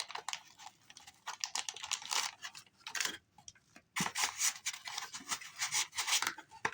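Packaging being handled: irregular crinkling and rustling with quick light clicks and taps of small parts, easing off briefly about three seconds in.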